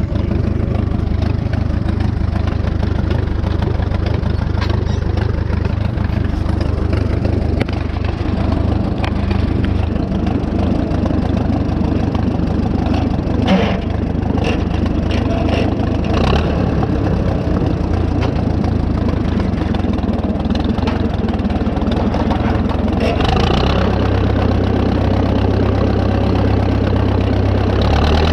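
Farmall F-20 tractor's four-cylinder engine running steadily while pulling a hay rake through the field, with a few brief knocks around the middle. The engine note shifts slightly about three-quarters of the way through.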